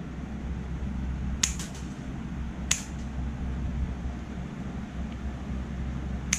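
Scissor-type pet nail clippers snipping through a Chihuahua's claws: three sharp clicks, two in the first half and one at the very end, over a steady low hum in the room.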